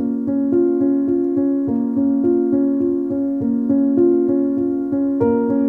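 Background music: a keyboard playing a steady pulse of repeated chords, about four strikes a second, moving to a new chord every couple of seconds.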